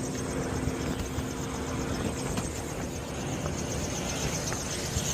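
Rooftop HVAC unit running: a steady mechanical whir with a low hum that fades out about two and a half seconds in.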